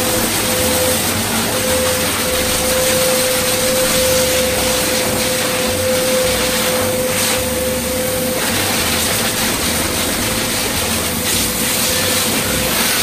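Pet grooming blower dryer running steadily, a loud rush of air with a steady whine, blasting water out of a wet husky's coat.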